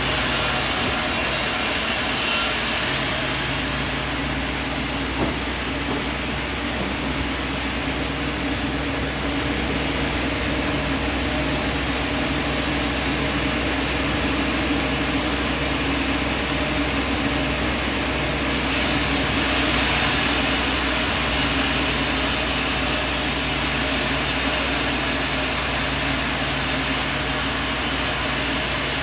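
Sawmill machinery running with a steady mechanical drone and a low hum. A brighter hiss comes in at the start and again through the last third.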